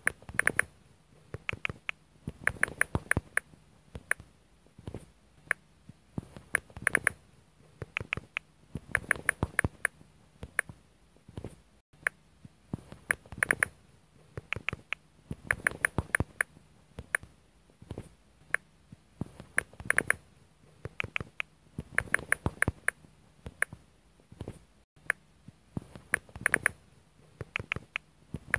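Facebook Messenger's 'writing' (typing) sound effect: flurries of quick, soft clicks, each about a second long, repeated every couple of seconds.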